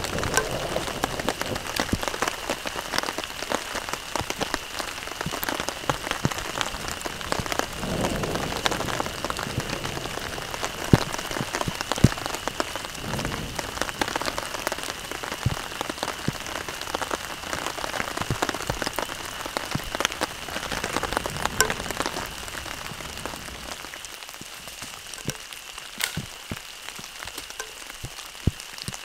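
Heavy rain pouring down, with many sharp taps of large drops hitting close by, easing a little near the end. A faint steady high tone runs under it.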